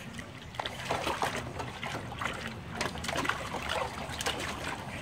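Water splashing and sloshing in a shallow plastic tub as a small black pug paws and digs at it with its front feet, in irregular quick splashes.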